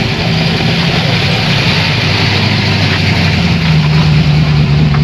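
Car engine running close by at a steady low pitch, growing louder about three and a half seconds in.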